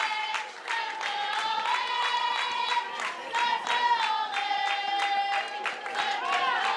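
Supporters chanting in long, high-pitched held notes with several voices overlapping, over repeated clapping.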